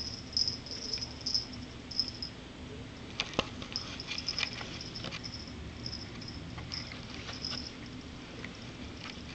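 Black kitten moving on a sisal-wrapped cat tree: short high scratchy rustles, several a second, with a cluster of sharp clicks and knocks about three to five seconds in.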